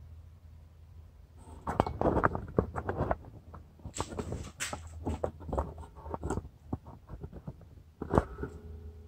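Handling noise: an irregular run of plastic knocks and clicks, loudest in the first half, with one sharp knock near the end, as the fish finder and its mount are handled.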